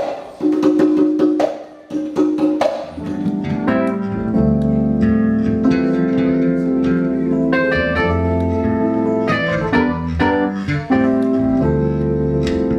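Band instruments played live at a sound check: a few separate notes at first, then from about three seconds in, sustained chords over a steady bass line.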